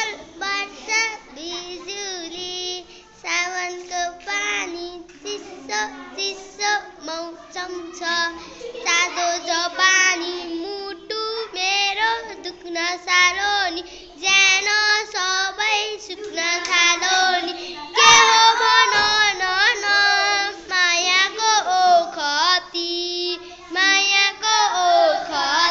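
A young girl singing a song close to the microphone, in phrases that run through the whole stretch.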